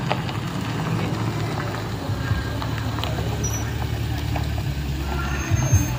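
Vehicle engines running with a steady low rumble on a rough dirt road, with a brief louder low knock near the end.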